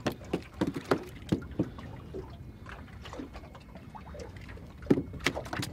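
Water lapping and slapping against the hull of a drifting boat, with irregular light knocks and clicks as a freshly caught flathead and its line are handled on the deck.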